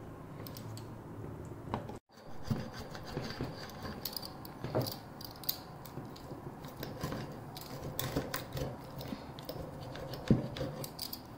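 Rotary pizza cutter rolling and pressing through a thin, crisp pan-baked pizza crust: a run of small irregular crunches and clicks as the wheel cuts through to the plate, with a sharper knock near the end.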